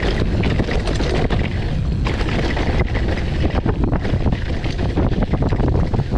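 Wind rushing over the microphone as a gravel bike rolls along a dirt trail, with its knobby tyres rumbling and sharp rattles and clicks from the bike over the bumps.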